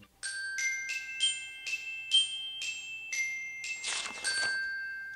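Intro jingle of bright glockenspiel-like bell notes: about ten struck notes one after another, each ringing on. A short whoosh comes about four seconds in, and the last note fades away.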